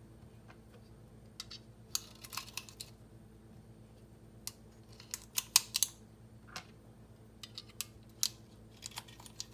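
Firearm being handled and loaded: a series of sharp metallic clicks and clacks in irregular small clusters, the loudest a quick group a little past halfway.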